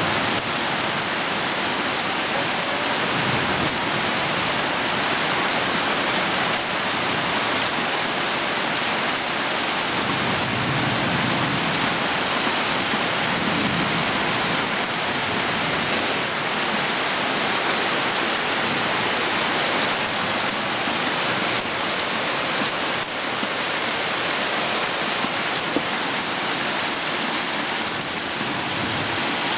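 Heavy tropical downpour: a dense, steady hiss of rain pouring onto muddy ground and a palm-thatched roof.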